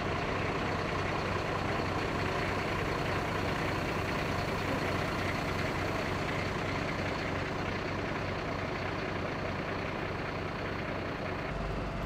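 Heavy vehicle's engine running steadily at idle, a constant low hum.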